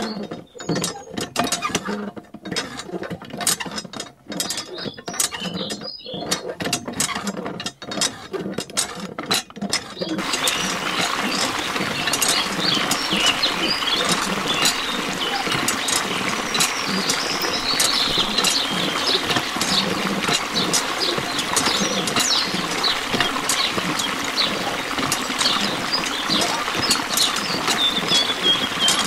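Miniature hand pump being worked by its lever, clicking and creaking with each stroke. From about ten seconds in, a thin stream of water runs from the spout and splashes into a small trough, a steady trickle under the continuing lever clicks and squeaks.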